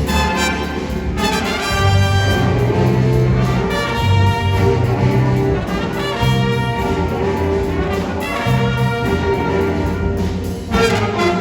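Orchestral music led by brass, with trumpets and trombones playing.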